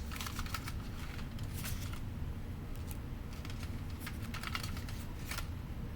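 Pokémon trading cards being sorted through by hand: scattered soft clicks and flicks of card stock.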